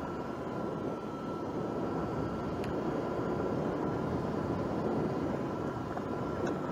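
Sur-Ron electric dirt bike riding along a gravel track: a steady rush of tyre and gravel noise, with a thin, steady high whine from the electric drive and a couple of faint clicks.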